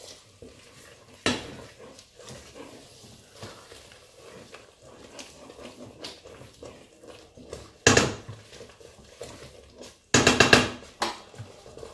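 Wooden spatula stirring thick egusi paste in a stainless steel pot, scraping and knocking against the pot: a sharp knock about a second in, another burst near eight seconds, and a quick run of scrapes and knocks around ten to eleven seconds.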